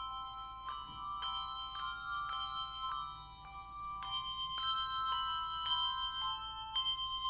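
A quartet of handbells playing a hymn arrangement: chords of bells struck in a steady pulse a little under twice a second, each left ringing into the next.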